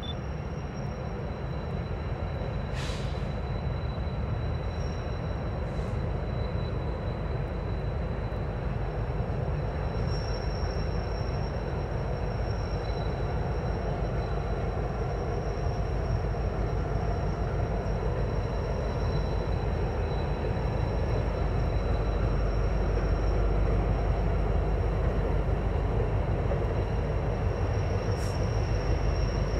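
Freight train rolling past, a steady rumble of wheels and cars on the rails that slowly grows louder toward the end.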